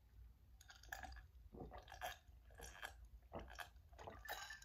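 Faint gulping as a person drinks iced water from a glass, a swallow about every half second.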